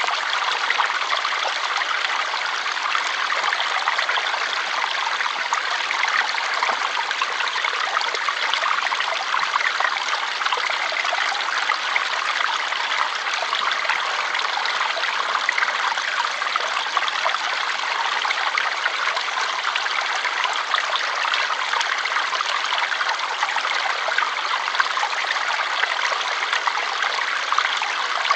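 Water flowing in a stream: a steady, even rushing and trickling with no breaks.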